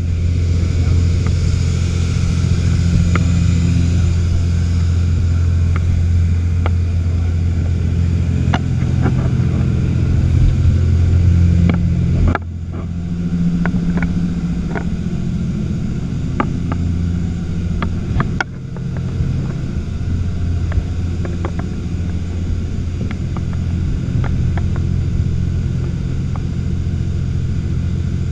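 Sport fishing boat's inboard engine running under way, heard from inside the cabin: a steady low drone with scattered light clicks and knocks over it.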